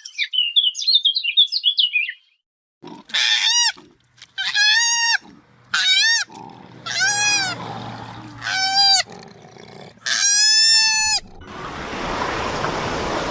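Rapid high-pitched chirping for about two seconds. After a short gap, an animal gives six loud calls, each rising and then falling in pitch, the last one the longest. A steady rushing noise follows near the end.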